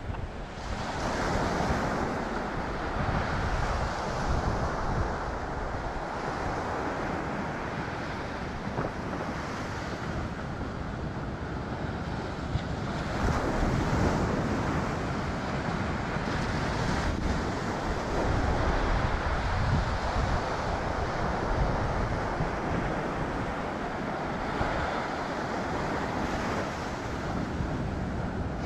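Ocean surf washing in, with wind buffeting the microphone: a steady rushing that swells and eases.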